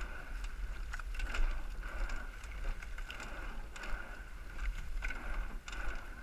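Racing eight-oared rowing shell underway: repeated clicks and knocks from the oars working in their oarlocks and the blades in the water, over a steady low rumble.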